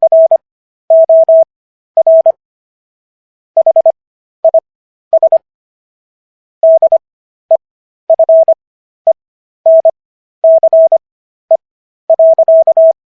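Morse code: a single mid-pitched sine-like tone keyed on and off in short dits and longer dahs. The characters are sent fast, at 25 WPM, with wide Farnsworth gaps between characters and words for an overall speed of 15 words per minute.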